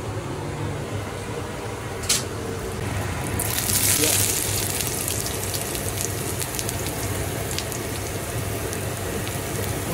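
Julienned ginger dropped into hot oil in a wok: a loud sizzle starts about three and a half seconds in, peaks, and then settles into steady crackling frying. A single sharp knock comes a little after two seconds, over a steady low hum.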